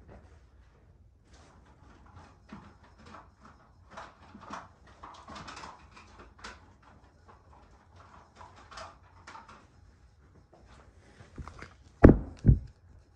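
Handling noise: faint scattered clicks, taps and rustles, then two loud knocks in quick succession near the end.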